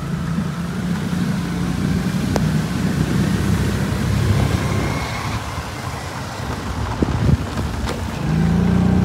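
Scooter engine running steadily while riding, with wind and tyre noise over a wet road. The engine note gets louder near the end.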